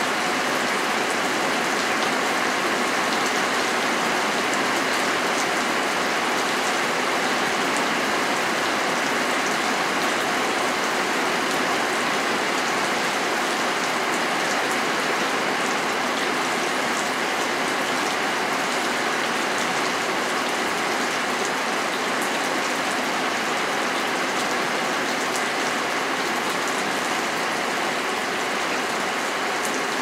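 Steady rain falling, an even hiss of drops with faint individual drop ticks over it.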